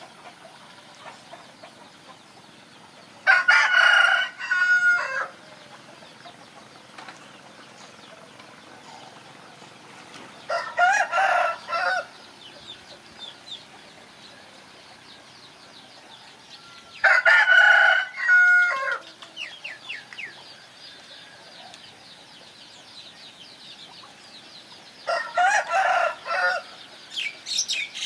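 A rooster crowing four times, each crow about two seconds long and roughly seven seconds apart. Small birds chirp faintly between the crows and more busily near the end.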